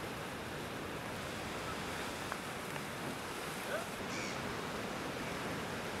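Steady hiss of ocean surf, with a sharp click a little after two seconds and a few faint short chirps around four seconds in.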